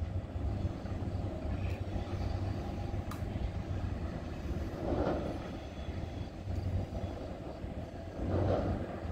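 EXO commuter train of bilevel coaches passing on an elevated track at a distance: a steady rumble of wheels on rail. It swells briefly about five seconds in and again near the end, as the locomotive at the rear comes by.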